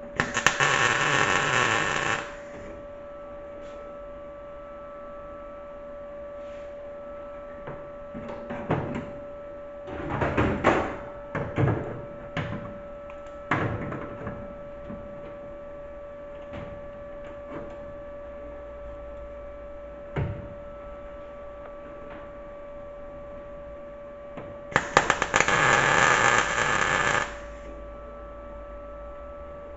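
MIG welder laying two short welds of about two seconds each, one at the start and one near the end, over a steady hum. Scattered knocks and clatter of metal work fall in between.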